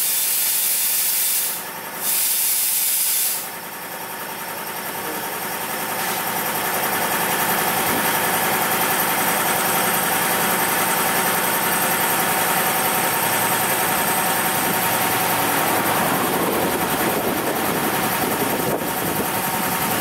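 Compressed air hissing hard from a shop air hose. It breaks off briefly about two seconds in and cuts off about three and a half seconds in. A steady machine drone with a thin whine then takes over and runs on.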